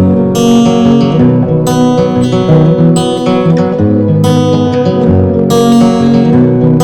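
Acoustic guitar music, strummed chords with a strum about every second and a quarter.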